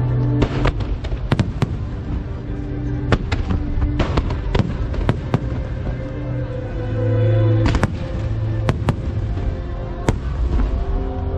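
Fireworks bursting: a dozen or more sharp bangs at uneven intervals, several in quick clusters, over loud show music with long held notes.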